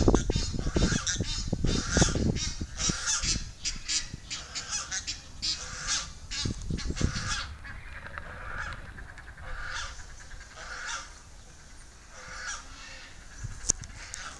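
Egyptian geese honking in a rapid harsh series as a territorial display, loud and dense at first, then thinning out and fading over the second half.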